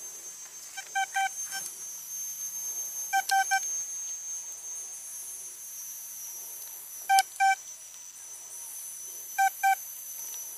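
Metal detector giving short, same-pitched beeps in four groups of two or three as it is passed over a buried metal target, signalling the target's position.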